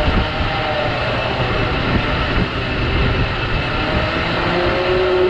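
Superwinch Talon electric winch running under load, a whine that slowly wavers in pitch, under heavy wind buffeting on the microphone.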